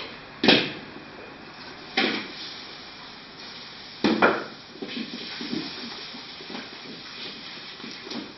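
Metal clanks of a ladle and wok at a restaurant wok station: three sharp strikes about a second and a half apart, then a run of lighter clatters. A steady rushing noise of the stove and its extractor runs underneath.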